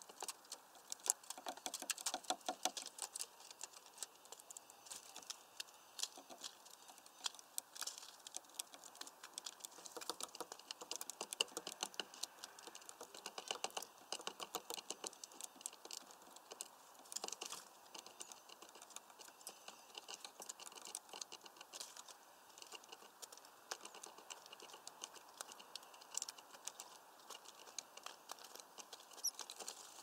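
Small birds, a blue tit and great tits, pecking at a mesh feeder and clambering on its perches: a continuous run of quick, irregular taps and scratches.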